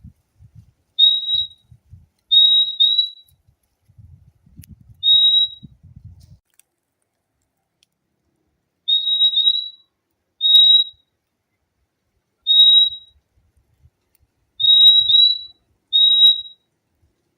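Purple-throated euphonia (fim-fim) calling: short, clear, high whistled notes, some single and some in quick doubled "fim-fim" pairs, repeated every second or two with a pause of a few seconds midway.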